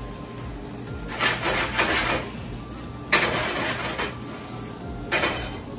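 A frying pan of sautéing onion, pepper and tomato being worked on an electric coil burner gives three bursts of scraping and sizzling. The second burst, about three seconds in, starts sharply, and the last is brief, near the end.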